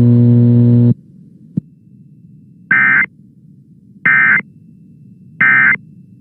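A steady low electronic buzz cuts off just under a second in, followed by three short warbling data bursts about a second and a half apart: the Emergency Alert System end-of-message (NNNN) tones that close a tornado warning broadcast. A faint hum lies underneath, with a click early on and near the end.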